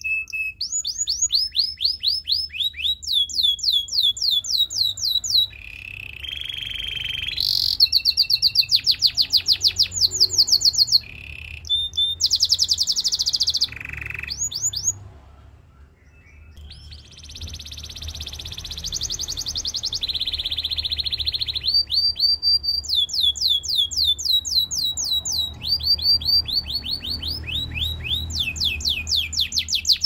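Canary singing: rolls of rapidly repeated high sweeping notes, switching to a new roll every few seconds, with a short pause about halfway through.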